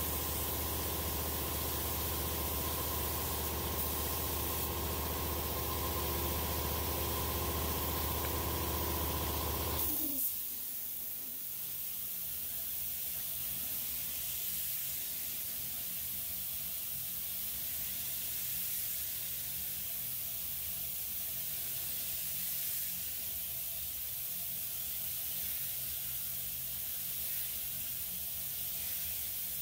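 Neiko 31207A HVLP mini gravity-feed spray gun hissing steadily as it sprays paint. Under it an air compressor motor hums until it shuts off suddenly with a click about ten seconds in.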